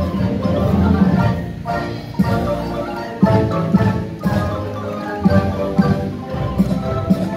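A massed ensemble of dozens of wooden marimbas, each played by several players, sounding together: a rhythmic tune of quickly struck mallet notes over a pulsing low bass line.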